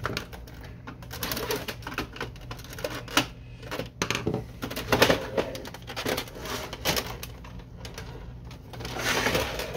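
Irregular plastic clicks, knocks and rattles from the casing of a Canon Pixma MG5220 inkjet printer as its side panel is unclipped and pulled off the frame. The loudest knock comes about five seconds in.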